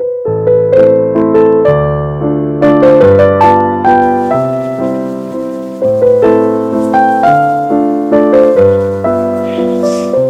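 Intro music played on piano or electric piano: a melody over changing chords, each note struck and fading.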